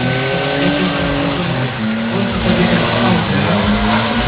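BMW car engine revving hard and unevenly during a burnout, its pitch rising and falling as the throttle is worked, over the hiss and squeal of the spinning rear tyres.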